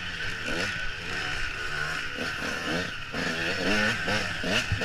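Dirt bike engine revving up and down over and over as the rider works the throttle along a wooded trail, with a short knock near the end.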